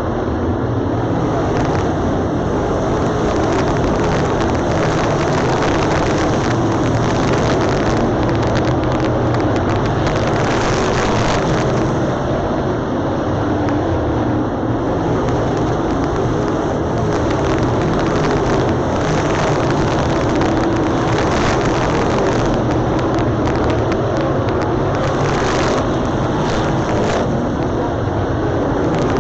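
A pack of dirt late model race cars running laps on a clay oval, their V8 engines making a steady, dense drone.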